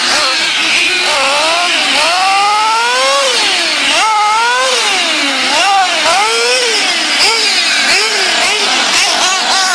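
Racing engines revving up and dropping back again and again as the vehicles accelerate and slow around a track, several engines overlapping, over a steady hiss.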